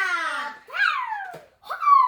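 A child's high-pitched wordless calls, three in a row, each sliding down in pitch.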